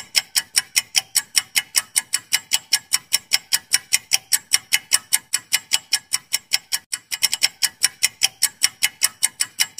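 Quiz countdown-timer sound effect: rapid, even clock ticking, about five to six ticks a second, with a brief break about seven seconds in.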